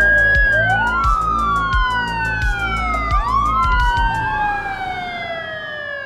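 Two fire engine sirens wailing out of step with each other, each rising quickly and falling slowly, growing fainter toward the end. Under them runs music with a steady drum beat that drops out about two-thirds of the way through.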